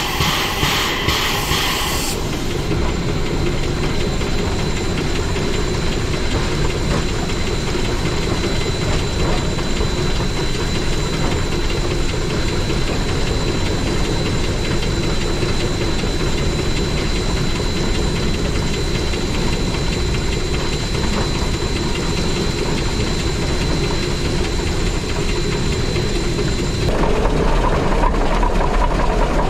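Steam locomotive running along the track, picked up from outside the cab: a steady rumble with a faint steady high whine. Its exhaust beats, about two a second, stop about two seconds in. Near the end the sound turns louder and deeper as the microphone is brought down beside the wheels and running gear.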